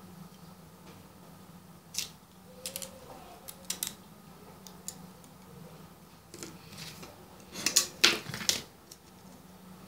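Plastic set square and pen handled on a wooden board over a small piece of metal sheet: scattered light clicks and short scrapes, with a louder run of scratching strokes about eight seconds in.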